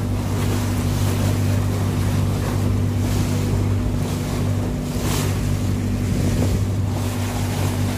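Tour motorboat's engine running steadily under way, with water rushing along the hull and wind on the microphone; the water and wind noise swells now and then.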